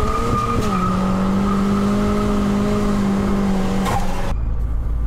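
Car engine revving up and then held at a steady high pitch for about four seconds, ending with a click. It is followed by a sudden change to a lower, steady rumble.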